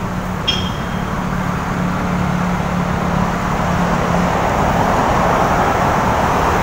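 Road traffic with a steady low engine hum that fades about four seconds in, and road noise swelling as a vehicle approaches near the end. A single short metallic clink about half a second in.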